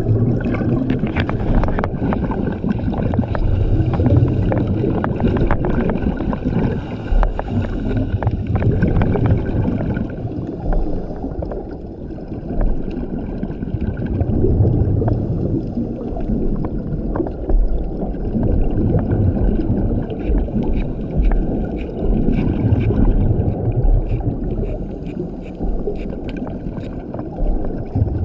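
Scuba regulator breathing heard underwater through a camera housing: a low rumble of exhaled bubbles that swells and fades every few seconds, with scattered sharp clicks over the top.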